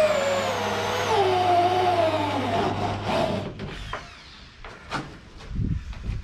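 Cordless drill running under load in the van's metal floor, its motor whine sinking in pitch as it slows. It stops about three and a half seconds in, followed by a few short knocks and thuds.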